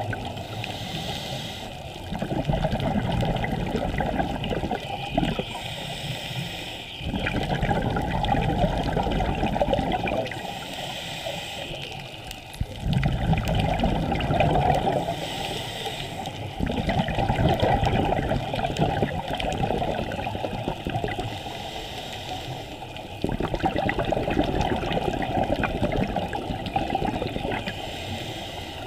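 Scuba breathing underwater through a regulator: a burst of bubbles gurgling on each exhale, alternating with a quieter hiss on each inhale, one breath about every five seconds.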